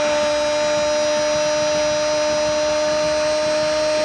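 A football commentator's long goal cry, 'goooool', held on one steady high note without a break.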